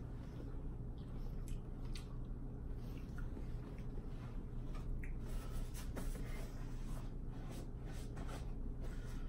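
A person chewing seafood with the microphone close: faint wet mouth clicks and smacks scattered over a steady low hum.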